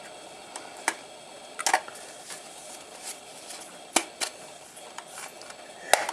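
Irregular sharp clicks and light knocks, about eight of them with the loudest near the end, from hands working at the plastic case of a Simpson 160 analog multimeter, trying to pry it open.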